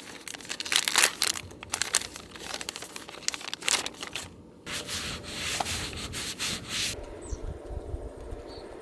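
Crinkling and crackling of a plastic shower-tissue packet being opened and handled, followed by a few seconds of steady rubbing, as the wet tissue is used to wipe. The rubbing cuts off abruptly about seven seconds in.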